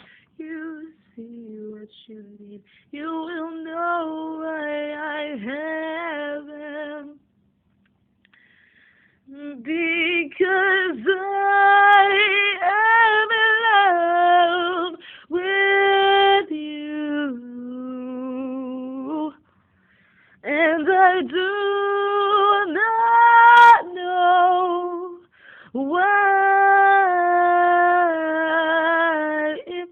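A woman singing solo, holding long notes in phrases separated by short pauses.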